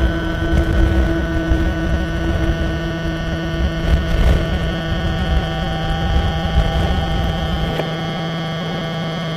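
A steady hum of several fixed tones over a rough low rumble. The rumble eases near the end.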